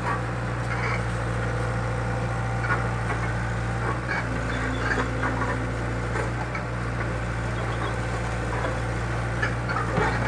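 Excavator engine running steadily at a low, even hum, with scattered light clicks and knocks over it.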